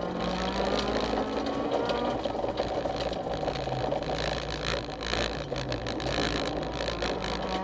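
Honda CRX rally car's engine heard from inside the cabin at speed, its pitch rising and falling through gear changes, with stones and gravel clicking against the body.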